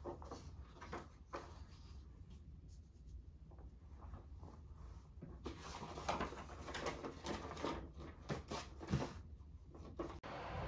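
Faint paper rustling with small taps and knocks from handling, irregular and busier in the second half. The sound cuts out suddenly near the end.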